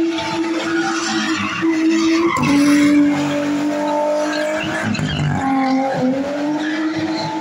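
A drift car's engine held at high revs while its rear tyres skid and screech as it slides sideways through a drift. The revs drop and climb back a few times as the driver works the throttle.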